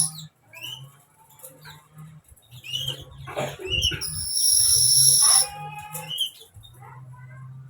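A sunbird singing in bursts of quick, high chirps and short trills, with a loud, shrill stretch of song about four to five seconds in.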